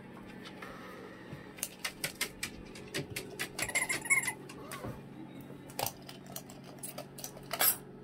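A cockatoo playing a small tambourine: irregular clicks and rattling metallic jingles come in quick clusters through the middle, with a louder jingle shake near the end.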